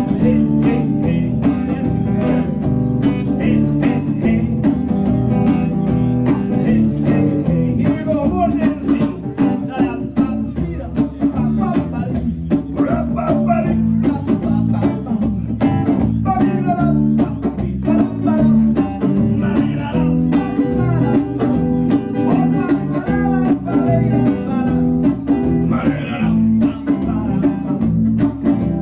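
Live band playing a song with guitar, bass guitar and drums, a steady beat running throughout.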